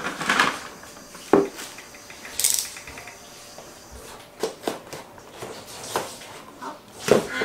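Packaging being handled while a small cardboard product box is opened: a short plastic-bag crinkle at the start, a sharp knock, a brief scrape of the box flap, then scattered taps and clicks of cardboard and plastic, with one louder knock near the end.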